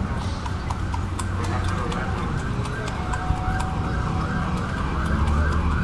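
An emergency-vehicle siren yelping in fast rising-and-falling sweeps, about three a second, over the low rumble of street traffic.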